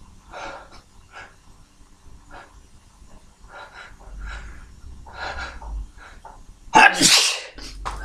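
A person's short, sharp breaths building up, then one loud, forceful sneeze about seven seconds in, brought on by tickling the nose.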